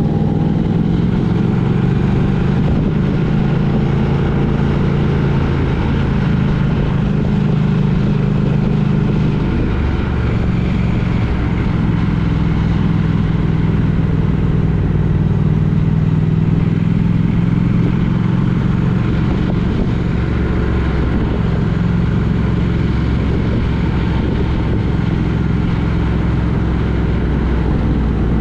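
Steady engine drone and road noise from a road vehicle driving along at an even pace, the engine holding a fairly constant pitch.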